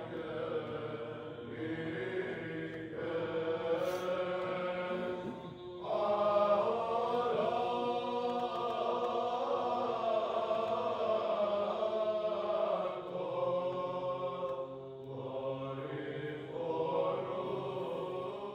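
Slow church chant sung by a group of men's voices, long held notes moving over a steady low drone. It dips briefly about a third of the way in, then swells again.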